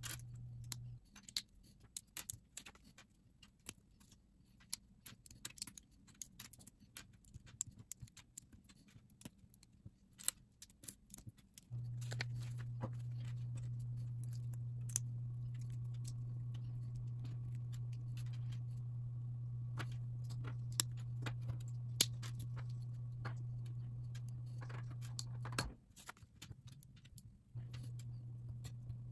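Small LEGO pieces clicking and clattering on a tabletop as they are picked through and pressed together, in many short sharp ticks. Under them a steady low hum stops about a second in, returns about twelve seconds in, and cuts out for about two seconds near the end.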